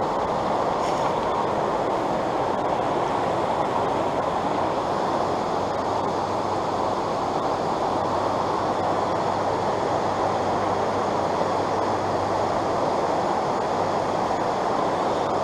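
Fast stream current rushing steadily around the angler, an even rush that doesn't change.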